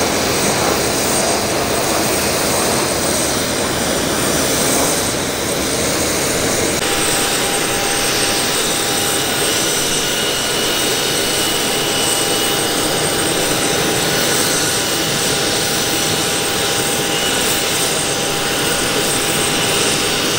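A KC-135 Stratotanker's four jet engines passing overhead, a steady broad rush. About seven seconds in it gives way to the twin jet engines of a Blue Angels F/A-18 Hornet idling as it taxis, a steady rush with a high whine.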